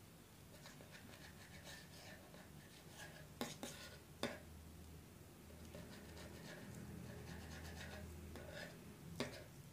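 A knife cutting the crusts off a slice of white bread: faint, soft scratching strokes of the blade through the crust, with a few sharp taps, one about three and a half seconds in, another just after, and one near the end.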